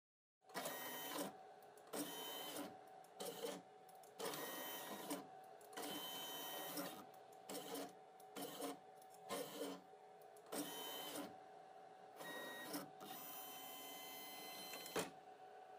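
Motor-driven AUTO-Fiche Carrier on a ScanPro 2200 microfilm scanner moving the fiche stage in a series of short stop-start runs, about a dozen, most under a second, over a steady hum. A longer run near the end stops abruptly.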